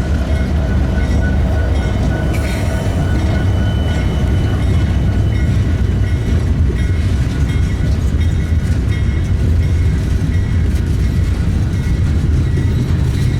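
Freight train running by: a loud, steady heavy rumble, with faint thin high tones over it.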